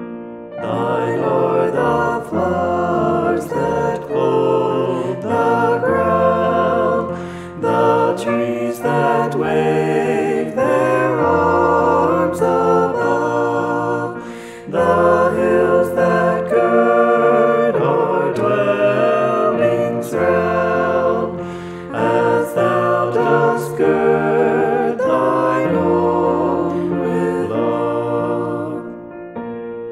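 Several voices singing a hymn together in harmony, in phrases with short pauses about every seven seconds.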